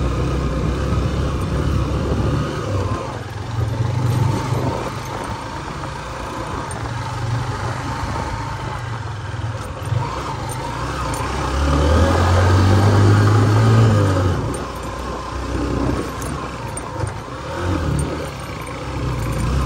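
Motorcycle engine running under load on a rough off-road track, pulling harder and louder for a couple of seconds about twelve seconds in.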